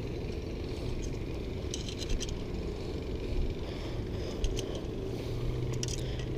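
A steady low background rumble with a few faint light clicks and rustles as a fish is held against a tape measure on a rock.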